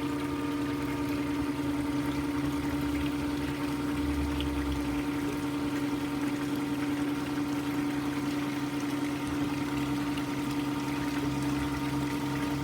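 Pool pump running with a steady hum of several fixed tones, over water flowing and pouring.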